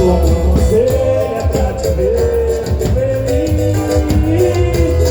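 Samba-style music with a heavy bass pulse and a gliding melody line.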